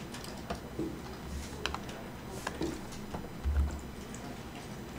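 Computer keyboard and mouse clicks, irregular and scattered, with two low thumps about one and three and a half seconds in.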